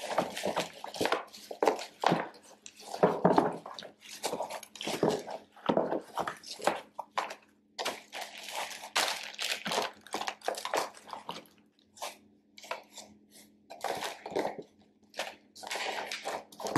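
Plastic packaging crinkling and a cardboard shipping box being handled, in irregular rustles, scrapes and crackles as an item is packed into the box.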